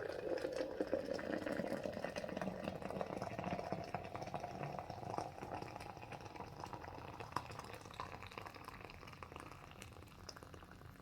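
Hot water being poured into a coffee vessel, the pitch of the splashing rising as the vessel fills over the first few seconds, then tapering off.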